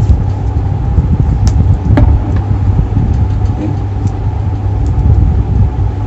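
Steady low rumble throughout, with two light clicks about one and a half and two seconds in as a tool works at the microwave oven transformer's terminal.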